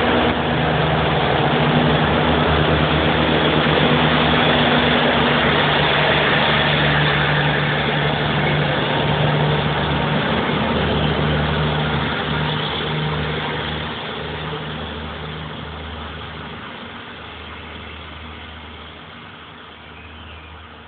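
Irish Rail 2700-class diesel railcar pulling away, its engines running with a steady low hum. The sound fades gradually over the second half as the train draws off into the distance.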